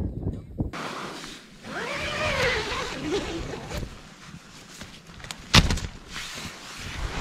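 Wind buffeting a tent's nylon walls: a steady rush of gusting air and flexing fabric, with a wavering pitched whistle about two to three seconds in. A sharp snap of the fabric comes a little past the middle.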